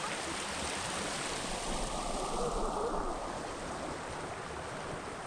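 Small shallow creek running over rocks in riffles: a steady rushing of water.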